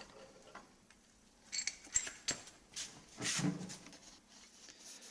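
A few light metallic clinks, with a brief ring, followed by a short scrape: steel engine parts being handled as connecting-rod caps and bearings come off during the teardown of a Volvo D12 diesel.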